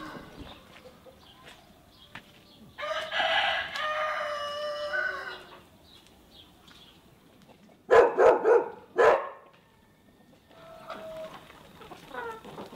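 A rooster crows once, a long call about three seconds in. About eight seconds in come three loud short calls close together, then hens cluck softly near the end.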